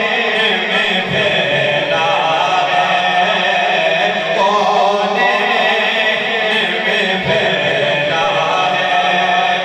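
A man's voice chanting devotional verse in long, held notes that glide from one pitch to the next, in the melodic style of a Qari's recitation.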